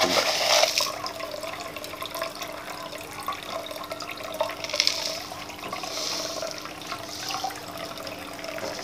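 The small aquarium pump and water feature run with steady trickling water and a low hum. Sand is poured from a plastic cup onto the soil: a loud hiss in the first second, then a few softer pours later.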